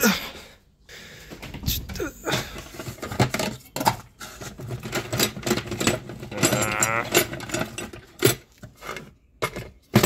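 Hands rummaging through plastic tubs of small metal hardware: irregular knocks and rattles of plastic containers and lids, with clinking bolts and parts. A short wavering squeak comes about six and a half seconds in.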